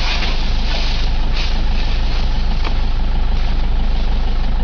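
Vehicle engine idling steadily, a constant low running sound, with a few short rustles over it.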